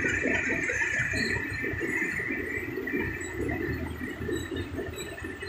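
JCB backhoe loader's diesel engine and hydraulics working as it dumps soil into a tipper truck and turns back toward the pile: a steady high-pitched whine over a rough, uneven rumble, easing a little near the end.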